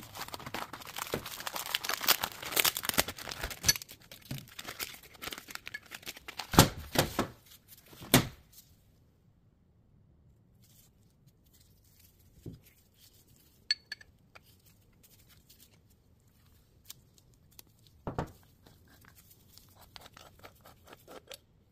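Paper wrapping being torn open and crinkled as a C1 ammunition spanner wrench is unwrapped, with two sharp knocks about seven and eight seconds in. Then it goes mostly quiet, with scattered faint clicks and a knock near the end as the metal wrench and mortar round are handled.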